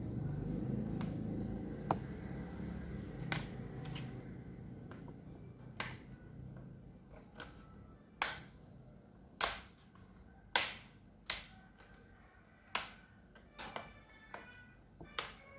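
Snap-fit clips of a laptop's bottom cover popping loose one after another as the cover is pried off: a series of sharp clicks, roughly a second apart, louder in the second half.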